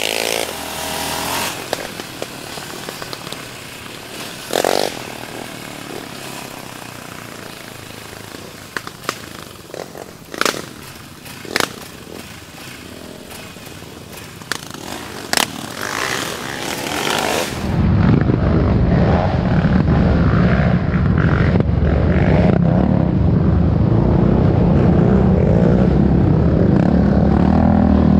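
Yamaha Raptor 700R's single-cylinder engine running on a rough dirt trail. For the first two thirds it sits fairly low under wind noise, with scattered sharp knocks and clatter. About 18 seconds in, after a cut, the engine comes up loud and steady.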